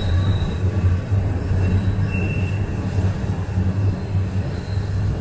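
Toronto subway train (TTC Line 1, Toronto Rocket car) running through the tunnel, heard from inside the car: a steady low rumble with faint high wheel squeal, briefly higher about two seconds in.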